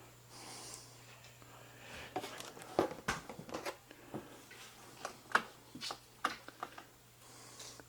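Irregular clicks, knocks and crunches of debris being disturbed in a small room, over a faint low steady hum.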